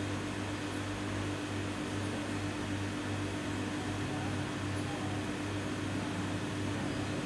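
Steady machine hum with an even hiss: a held low tone over a lower throb that pulses evenly, unchanging throughout.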